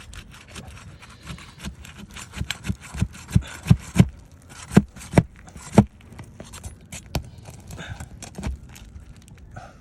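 A string of sharp knocks and scrapes on an asphalt-shingle roof, about a dozen knocks and loudest from about three to six seconds in.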